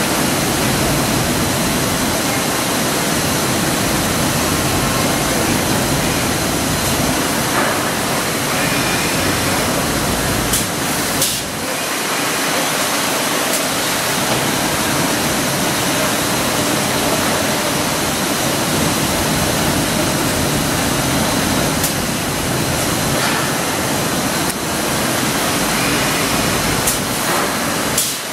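1997 IMA Quadroform C 80/280 CNC woodworking machining centre running: a steady, loud rushing noise, with a few sharp clicks and the low rumble dropping about eleven seconds in.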